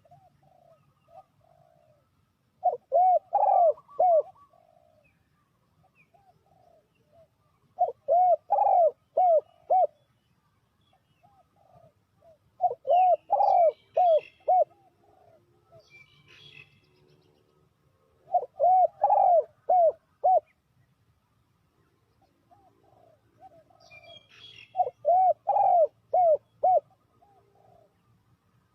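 Spotted dove cooing: five bouts of repeated coos, one every five or six seconds, each bout a run of several loud notes with softer notes around it.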